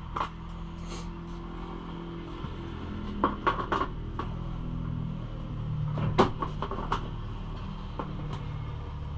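Scattered clicks and knocks of tools and parts being handled while working on a pit bike: a cluster about three seconds in and a sharper knock about six seconds in, over a steady low hum.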